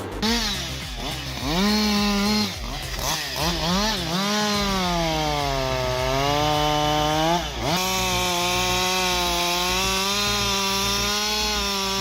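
Two-stroke chainsaw revved a few times, then run at full throttle through cuts. The engine pitch sags as the chain bites into the wood and recovers, holds high and steady, then drops away as the throttle is released near the end.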